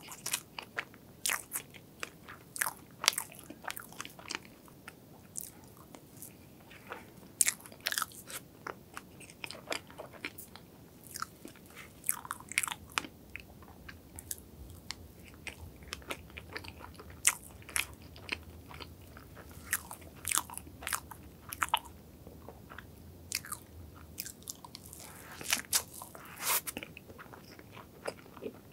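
Close-miked eating sounds: soft, wet chewing of strawberry crepe cake and cream, with frequent irregular mouth clicks and smacks.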